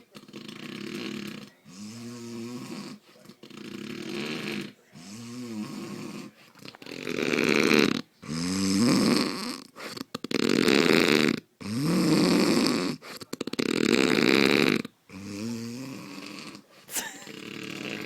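A man snoring heavily, one harsh snore on each breath about every second and a half, with the loudest snores in the middle stretch.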